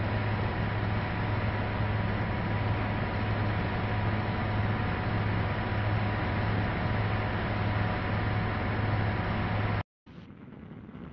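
Railway snow plow train running: a steady, loud mechanical drone with a strong low hum. It cuts off suddenly near the end and gives way to quieter wind noise.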